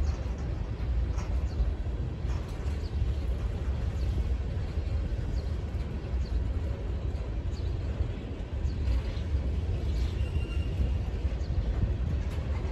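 Freight train of tank cars rolling past: a steady low rumble of wheels on rail with a few faint, irregular clicks.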